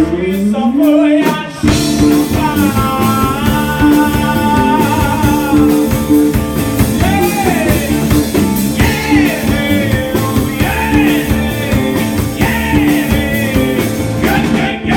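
Live rock band playing: a male vocalist singing over electric guitar, bass and drum kit, with a rising glide about a second in before the vocal line comes in.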